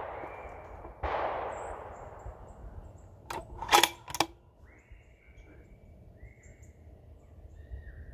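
A single rifle shot about a second in, its report dying away over a couple of seconds, followed a couple of seconds later by three sharp clicks in quick succession. The source is a Howa 1500 bolt-action rifle fitted with a muzzle brake.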